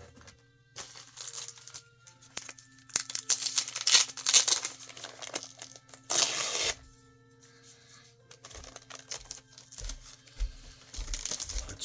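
Comic books being handled, rustling and crinkling in irregular bursts; the loudest come about four and six seconds in, with softer handling noises near the end.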